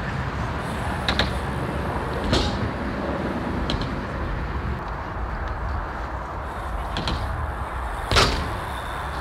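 Skatepark riding sounds over a steady low background noise: about five sharp knocks of wheels and bikes striking the concrete ramps and ledges, the loudest about eight seconds in as a BMX rider hits the box.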